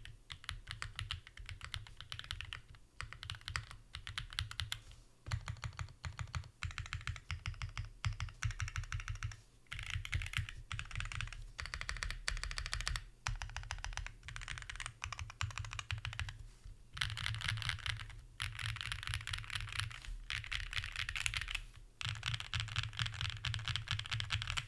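Typing on a gasket-mounted aluminium-plate 65% mechanical keyboard with Starry switches, Durock V2 stabilizers and GMK Shoko keycaps: fast runs of keystrokes, each with a sharp clack and a low thud, broken by short pauses.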